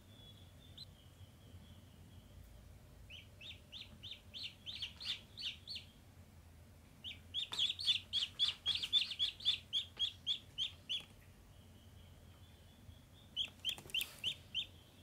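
Domestic ducklings peeping: short, high peeps in quick runs of about four a second, three runs, the longest in the middle lasting about four seconds.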